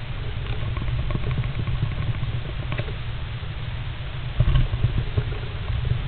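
Great spotted woodpecker stirring and preening inside a wooden nest box: scattered light scratches and taps against the wood over a steady low rumble, with a cluster of louder dull bumps a little past the middle.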